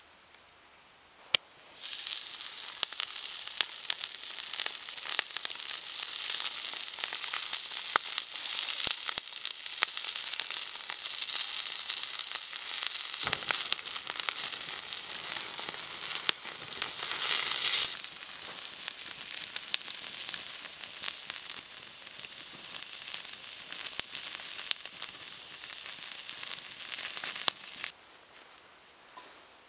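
Pork steak sizzling hard in a hot pan over an open fire, with the fat flaring into flames and scattered crackles. The sizzle starts suddenly about two seconds in, is loudest a little past the middle, and cuts off suddenly shortly before the end.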